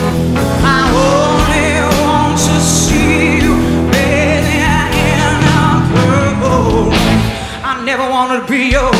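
Live rock band playing a slow ballad, with a woman singing lead in long held notes with a wide vibrato. The accompaniment thins out for a moment near the end.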